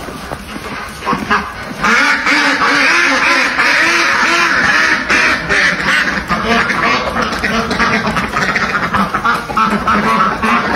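A flock of domestic ducks quacking together, many overlapping calls. The quacking is quieter at first and swells into a loud, dense chorus about two seconds in.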